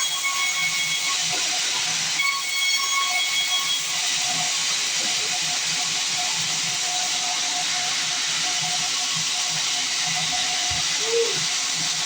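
Band sawmill cutting a log: a loud, steady hiss of the blade in the wood, with a faint whine that comes and goes in the first few seconds.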